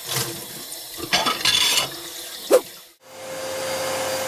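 Tap water running into a sink with dishes clinking, and one sharp, loud clink about two and a half seconds in. About three seconds in, a small handheld vacuum cleaner starts up and settles into a steady whirring hum.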